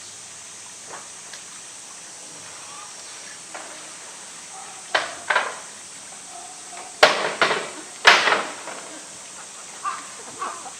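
Sharp knocks of toys against the concrete rock ledge as a polar bear noses and shoves them, a bamboo tube among them: a pair of knocks about halfway through, then three louder ones a couple of seconds later.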